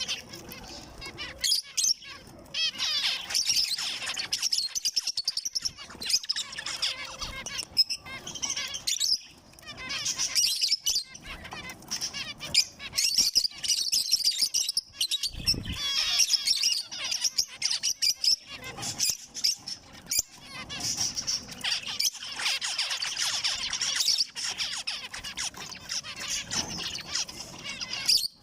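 Zebra finches chirping and calling in continuous, dense chatter, with brief pauses.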